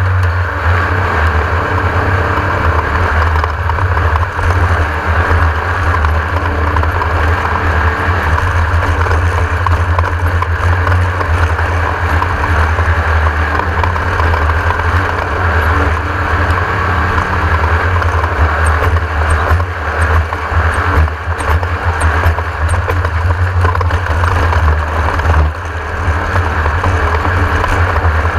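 Class 1600 desert race car at speed, its air-cooled VW four-cylinder running in a steady low drone under a loud haze of wind and dirt noise, with a few short knocks about two-thirds of the way through.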